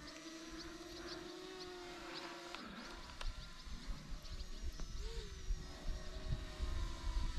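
A steady motor hum from a model aircraft in flight that bends and fades about two and a half seconds in, with small birds chirping. Wind rumbles on the microphone, growing through the second half.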